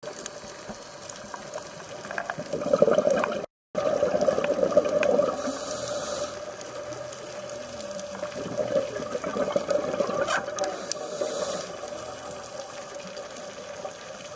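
Underwater rushing and bubbling of scuba divers' exhaled bubbles, heard through a compact camera's dive housing, swelling and easing every few seconds. The sound drops out completely for a moment about three and a half seconds in.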